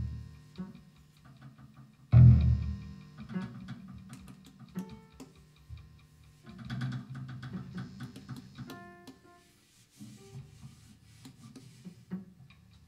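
Sparse free-improvised music on guitar, drum kit, violin and piano: a loud low plucked guitar note about two seconds in, scattered light taps and clicks, and short held high notes around nine seconds in, with quiet gaps between.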